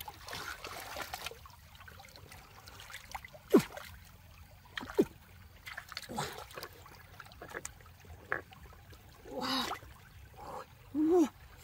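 Hands sloshing and splashing in shallow stream water while groping among submerged rocks, with two sharp splashes about three and a half and five seconds in over the steady trickle of the stream.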